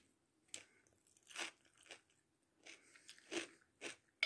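A person chewing a mouthful of crisp raw salad with cucumber: a series of short, irregular crunches, about six over four seconds.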